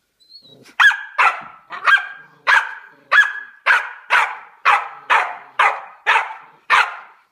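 Dogo Argentino barking in play, about a dozen sharp barks at roughly two a second, starting about a second in.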